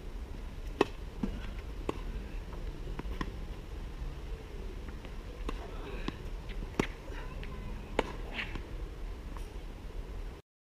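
A tennis rally: a series of sharp pops as rackets strike the ball and the ball bounces on the hard court, irregularly spaced a second or so apart, over a steady low wind rumble on the microphone. The sound cuts off just before the end.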